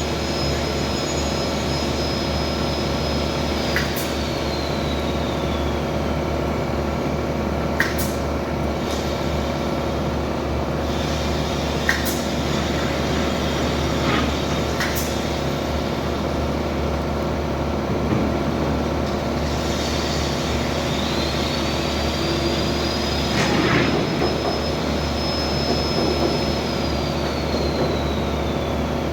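Steady machine hum with a high whine that falls in pitch about four seconds in, then rises, holds and falls again in the last third, with a few sharp clicks along the way.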